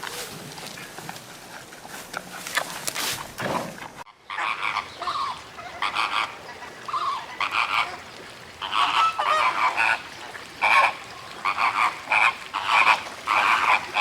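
Many short animal calls in quick succession, some overlapping, beginning about four seconds in after a brief gap; before that, scattered clicks and rustling.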